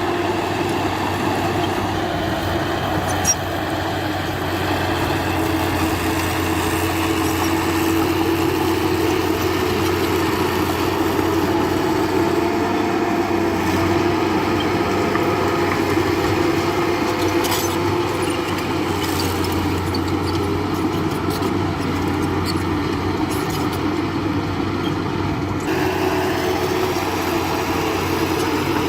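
Diesel engine of heavy earthmoving machinery running steadily with an even drone. The sound changes slightly near the end.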